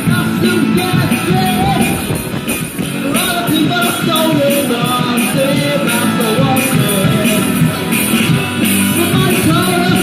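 Small rock band playing live: electric guitars and bass through small combo amplifiers over a drum kit, in a loud, steady rock groove.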